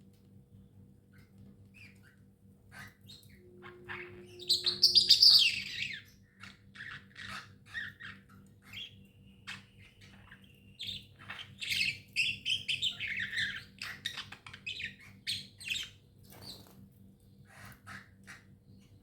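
Pet budgerigars chirping and chattering in quick, irregular calls, with a loud burst of chatter about four seconds in and another busy stretch in the middle.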